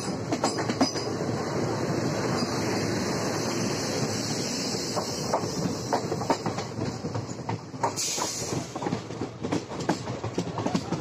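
Running noise of a moving Indian Railways passenger train heard from its coach door, with the rush of a freight train's open wagons passing close alongside and wheels clacking over rail joints. About eight seconds in, the steady rush thins into separate sharp wheel clacks.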